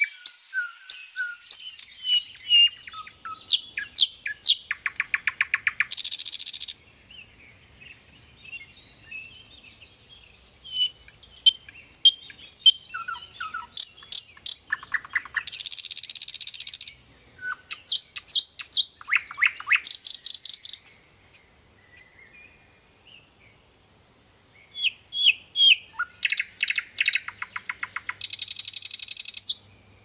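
Common nightingale singing: phrases of sharp repeated notes and clear whistles, several of them running into a fast, dry rattling trill, with short pauses between phrases.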